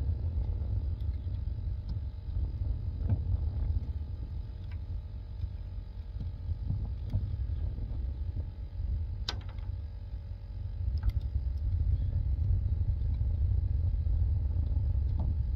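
Wind buffeting the microphone as a steady low rumble, with a few sharp clicks and taps from tools and gear being handled, the loudest about nine seconds in.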